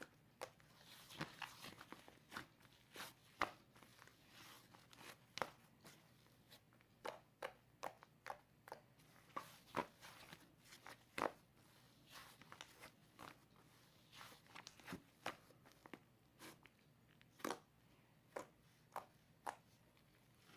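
Cloud slime being squeezed and stretched by hand, giving faint, irregular crunchy crackles and small pops.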